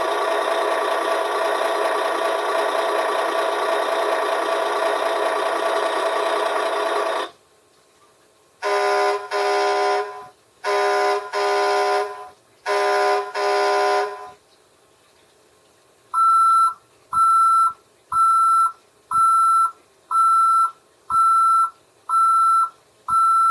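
Electronic sound effects played from a 2019 Hess toy tow truck's speaker. First comes a truck-engine sound for about seven seconds, then three pairs of short horn honks. Last is a back-up beeper sounding about once a second.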